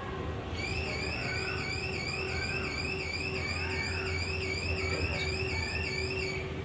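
A high electronic warbling tone, wavering evenly up and down about three to four times a second, starting about half a second in and stopping shortly before the end, over a steady low hum.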